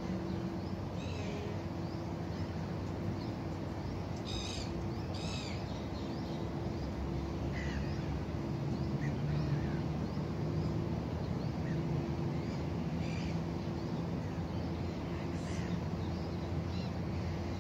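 Birds calling over a steady low hum, with two louder calls about four and five seconds in and scattered short chirps between.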